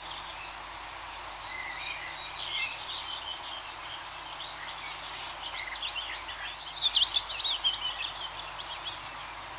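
Budgerigar chattering and warbling: a busy run of quick high chirps and squeaks, loudest about seven seconds in, over a steady background hiss.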